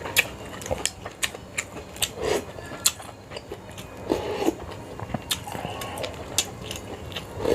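Close-miked mouth sounds of eating Sarawak laksa: chewing with many short, sharp wet clicks of lips and mouth, and a few brief louder smears about two and four seconds in.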